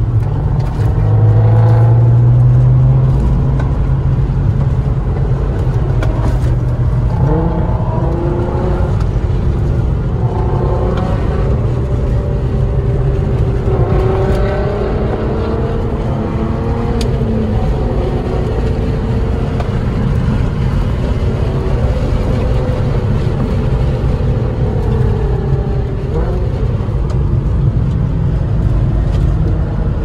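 Car engine and road noise heard inside the cabin of a Mk4 Volkswagen driven briskly along a winding road. The engine's pitch rises and falls again and again as it pulls and eases off through the bends, over a steady low rumble, with a deep hum loudest in the first few seconds.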